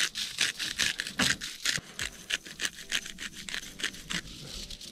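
Rapid, irregular scraping or rubbing strokes, several a second, which stop about four seconds in.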